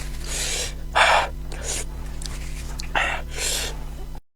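A woman's sharp hissing breaths and gasps, sucking air in and puffing it out several times, the typical reaction to a mouth burning from very spicy food. The sound cuts off suddenly near the end.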